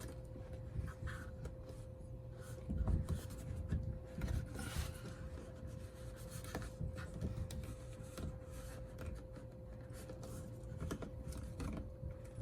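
Light handling noises of small metal door hardware worked by hand: scattered rubs, scrapes and small clicks as a stainless cable is fastened under a nut, with a few soft knocks a few seconds in, over a faint steady hum.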